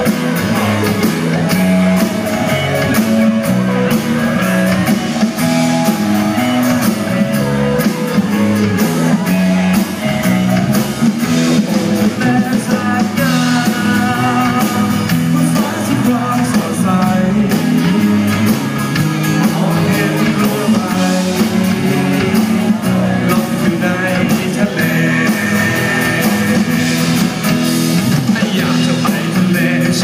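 A live rock band playing a song on electric guitars, bass and drums, with singing.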